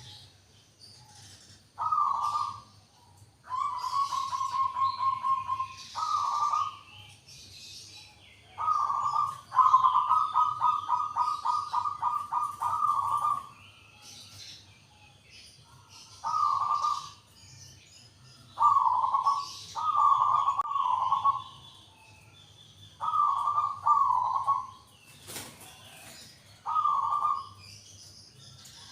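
Local zebra dove (perkutut) cooing: about ten phrases of rapid rolling coos, most short, two of them long runs, with pauses between. Faint high chirps of other birds behind, and one sharp click near the end.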